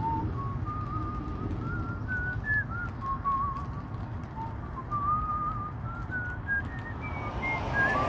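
A man whistling a wandering tune, one clear note at a time stepping up and down, some short and some held, over a steady low rumble.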